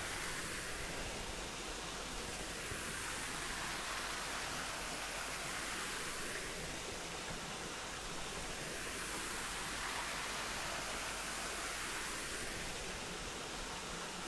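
Steady rushing noise, like running water or surf, that slowly swells and eases about every five or six seconds.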